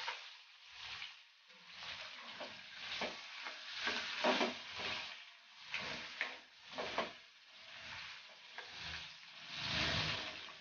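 Vegetable strips sizzling in oil in a steel wok, with a spatula scraping and turning them in irregular strokes about once a second.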